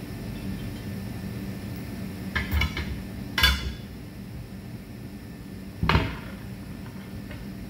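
Steel tire irons clanking against a truck tire's steel wheel rim as the bead is worked by hand: a quick rattle of clanks about two and a half seconds in, a loud ringing clank a second later, and another near six seconds. A steady low hum runs underneath.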